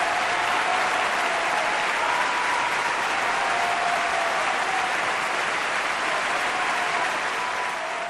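Steady, dense applause, many hands clapping at once.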